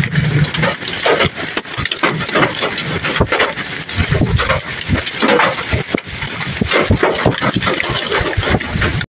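Hailstorm: wind-driven hail and rain pouring down, a continuous hiss dense with many small hits of hailstones.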